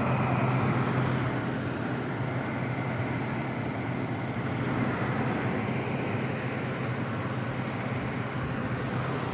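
LG 5,000 BTU window air conditioner running fan-only on its high setting with the compressor off: steady air noise from the fan over a constant low motor hum.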